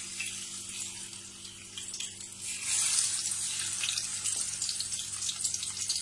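Marinated sardines frying in hot oil in a pan: a steady sizzle with crackling and spitting. It grows louder about two and a half seconds in as another sardine is laid into the oil.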